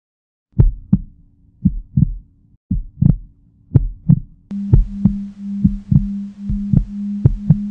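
Heartbeat sound effect: paired low thumps about once a second that quicken after about four seconds, when a steady low hum comes in under them.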